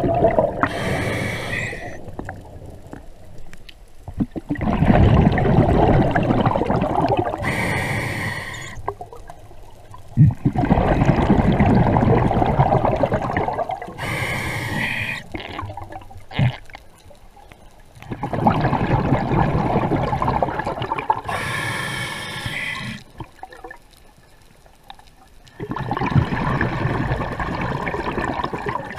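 A scuba diver breathing through a regulator underwater. Each breath starts with a short hiss as he inhales and ends with a long rush of bubbles as he exhales. There are about four breaths, roughly one every seven seconds.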